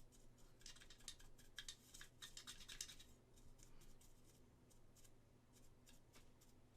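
Faint scratching and light clicking of a small tool dabbing powder into a seam on a resin model part, a quick run of clicks for the first few seconds, then sparser.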